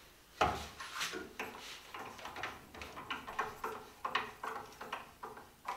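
Stanley No. 113 compass plane taking short, quick shaving strokes along the curved edge of a small piece of wood, about two to three strokes a second. A louder knock comes about half a second in.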